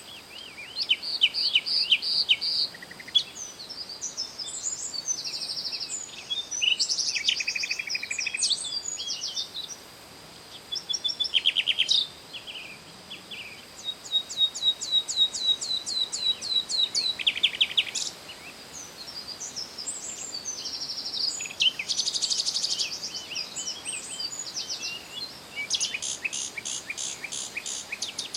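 Songbirds singing: varied, quick chirps and trills with rapid repeated note series, over a faint steady hiss.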